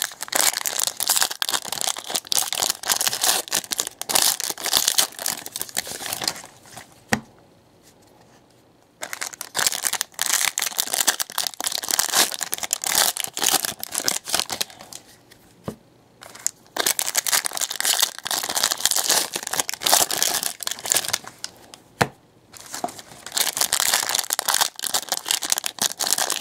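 Foil wrappers of 2018 Panini Prizm Racing trading card packs being torn open and crinkled in the hands. The crackling stops for a couple of seconds twice, about seven and about fifteen seconds in.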